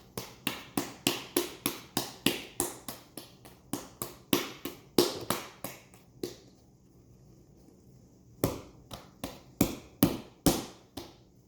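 Sticky bread dough being kneaded by hand on a countertop: a run of quick slaps and taps, about three a second, that stops about six seconds in and resumes for a few more strokes near the end.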